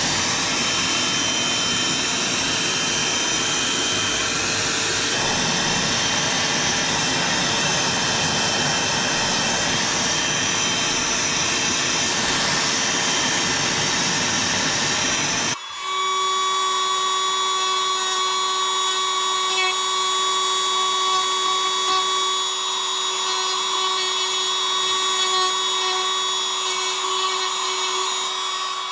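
A small power tool running continuously. About halfway through, the sound changes abruptly to a steadier whine with less rumble.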